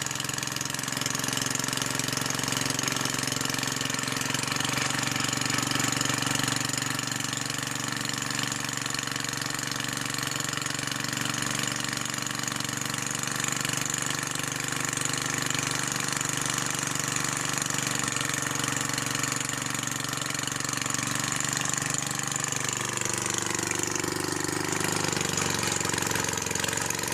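Old tiller's small gasoline engine running steadily on a carburetor taken from a snow blower, showing that the fuel-starvation fault is fixed. About 22 seconds in, the engine slows down.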